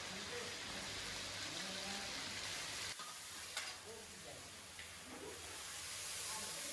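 Meat skewers deep-frying in hot oil in a cast-iron kazan: a steady sizzle, with one sharp click a little after halfway.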